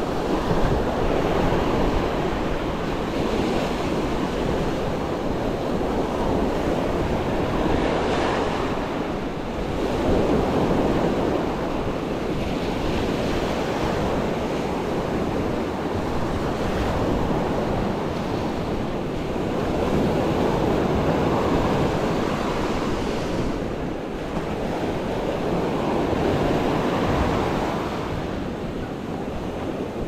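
Surf breaking on a sandy beach in strong wind, the wash swelling and easing every few seconds, with wind rumbling on the microphone.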